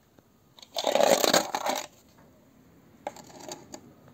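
A metal wrench clinking and rattling against metal for about a second, with a shorter, fainter bout of clinking near three seconds in.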